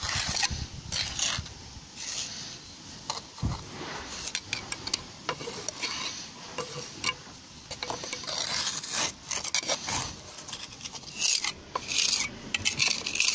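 Trowel scraping and pressing a stiff, fine sand-and-cement mortar onto brick: an irregular run of short scrapes with light clicks of metal on masonry.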